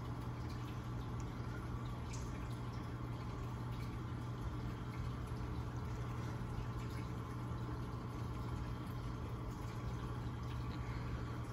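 Reef aquarium running: the circulation pumps give a steady low hum, under water trickling with a few faint drips.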